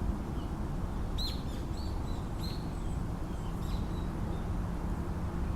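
Birds chirping: a handful of short, high calls between about one and four seconds in, over a steady low rumble.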